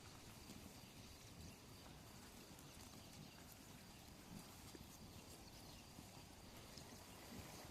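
Near silence: faint steady background noise with a few soft, scattered clicks.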